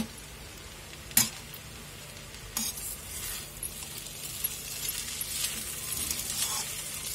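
Chow mein noodles frying in a metal kadhai over a low gas flame while a perforated metal spatula stirs and scrapes them, with a faint steady sizzle. A sharp clink of the spatula on the pan comes about a second in, and the scraping grows busier toward the end.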